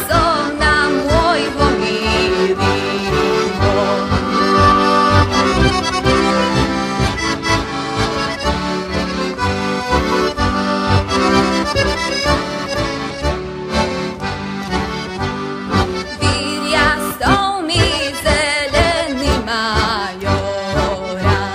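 Heligonka (Slovak diatonic button accordion) playing a folk tune over a steady bass beat.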